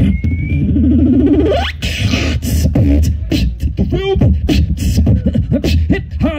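Live beatboxing amplified through a PA: a quick run of vocal kick and snare clicks over a steady low bass. About a second and a half in, a long vocal glide rises sharply in pitch, and warbling pitched vocal effects come near four seconds and again near the end.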